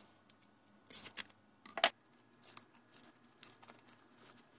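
Vacuum-sealed foil-laminate ration bar pouch being cut with a knife and torn open, the wrapper crinkling as it is pulled back; a series of short tearing and rustling sounds, the sharpest about two seconds in.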